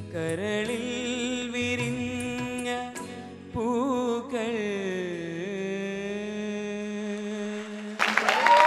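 Teenage boy singing an Indian song into a microphone, with wavering ornaments and then a long held closing note that slides down and sustains. The audience breaks into applause about eight seconds in.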